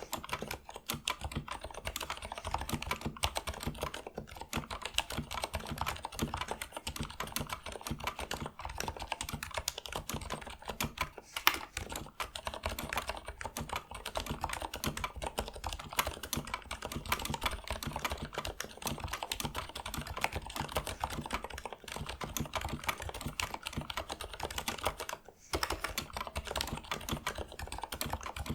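Fast, continuous typing on a Leopold 980M mechanical keyboard with Cherry MX Silent Red linear switches, whose built-in dampers soften each keystroke into a muted clack. There is one sharper keystroke about a third of the way through and a brief pause near the end.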